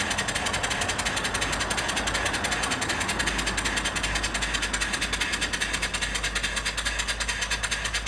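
Small vertical steam engine (1.5-inch bore, 2-inch stroke) running steadily on live steam from a small vertical fire-tube boiler, its exhaust chuffing in a quick, even beat with a steady hiss of steam.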